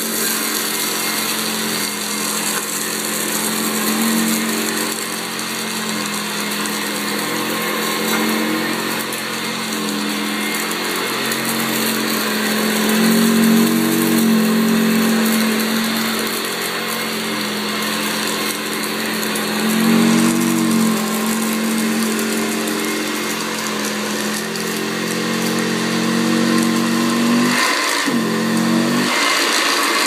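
1979 Hoover U4082 Contract upright vacuum cleaner, the commercial version of the Hoover Senior, running on carpet: a steady motor hum with rushing air. Its pitch swells and dips briefly a couple of times as it is pushed along.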